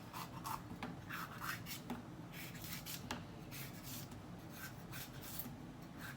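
Faint scraping strokes of a kitchen knife slicing on a cutting board, with a few light taps of the blade.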